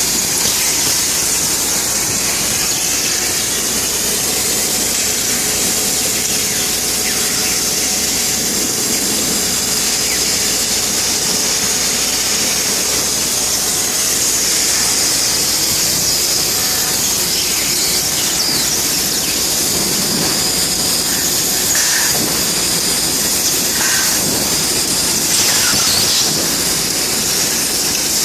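Bystronic CNC laser cutting machine running, a steady high-pitched hiss with a faint hum underneath, and a few short scraping streaks near the end.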